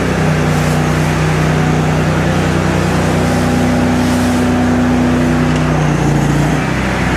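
Gas-engine pressure washer running steadily under load, with the hiss of high-pressure water spraying on concrete; the engine note shifts slightly near the end.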